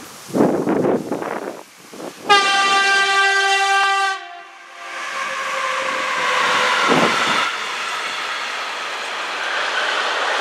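Horn of a DB class 193 Vectron electric locomotive sounding one steady blast of about two seconds, a greeting from the driver. Then the double-headed freight train passes close by, its wheels and wagons rumbling over the rails, growing louder and staying loud.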